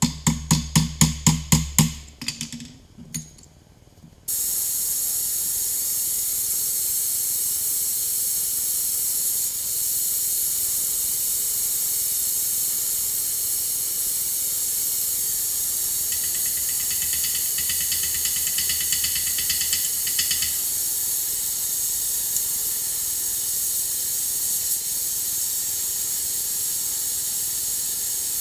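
A quick run of about a dozen short strokes, then from about four seconds in a gas torch flame hissing steadily as it heats the steel of a forged spatula.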